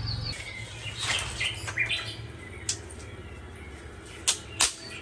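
Dry sticks being handled and snapped by hand for a wood fire, giving rustling and a few sharp cracks, the two loudest close together near the end. Birds chirp in the background.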